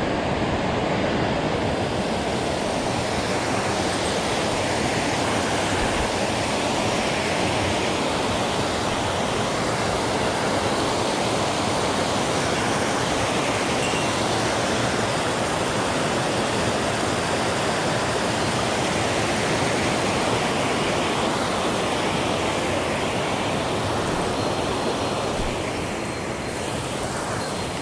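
Rushing mountain stream tumbling over rocks: a steady, even roar of water that eases a little near the end.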